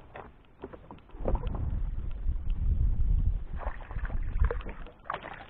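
A hooked largemouth bass splashing at the surface beside a kayak, with a cluster of splashes about four seconds in. Under them a heavy low rumble starts about a second in and fades near the end.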